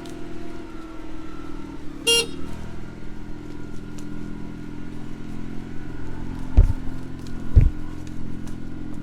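Farm vehicle engine running steadily while driving, with a short high pitched squeak or toot about two seconds in and two heavy thumps, a second apart, near the end.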